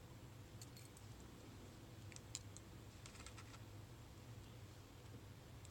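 Faint, scattered light clicks of lock picks working in the pin-tumbler core of a cheap padlock, in small clusters, over a low steady hum.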